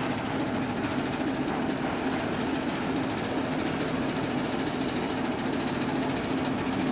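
An engine running steadily, with a fast, even rattle throughout.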